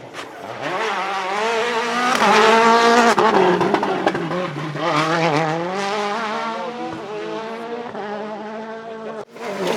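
Rally car engine revving hard, the pitch climbing and falling again several times as it accelerates, shifts and brakes through the stage.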